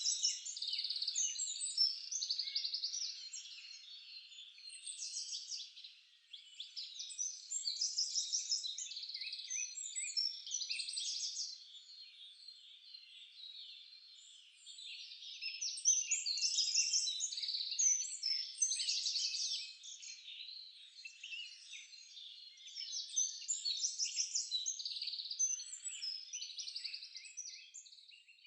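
Dense chorus of many small songbirds chirping and trilling together, swelling and fading in waves every few seconds.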